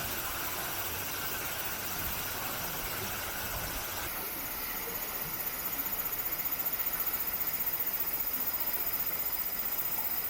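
Steady rush of a swollen, fast-flowing stream. About four seconds in the sound changes abruptly to a louder rush with a rapid flutter.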